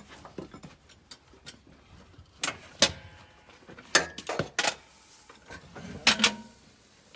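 A series of sharp knocks and clanks from hand work on a freshly lowered engine, in three short clusters about two and a half, four and six seconds in.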